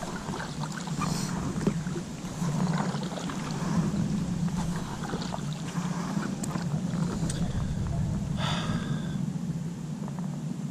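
Kayak paddling on a river: a double-bladed paddle dipping into the water, with small splashes and drips, beside an Intex K2 Challenger inflatable kayak. A steady low hum runs underneath, and a short call is heard about eight and a half seconds in.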